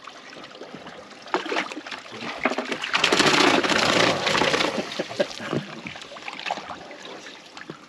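Water splashing on a fishing boat for about a second and a half near the middle, amid scattered knocks and clicks of gear being handled.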